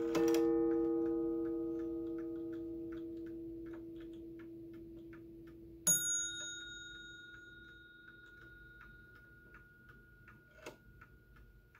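Seth Thomas Adamantine mantel clock's gong strike ringing out and slowly decaying, over the steady ticking of its wind-up movement. About six seconds in, a sharp, bright metallic ping rings on while the hands are turned by hand, and there are a few small knocks near the end.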